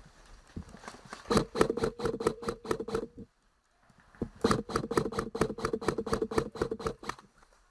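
Airsoft gun firing two long bursts, about six shots a second over a steady motor whine, with a pause of about a second between them.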